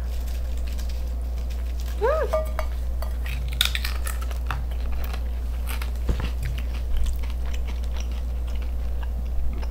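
Scattered clicks and clinks of utensils and food containers being handled during a meal, over a steady low hum, with a brief vocal 'mm' about two seconds in.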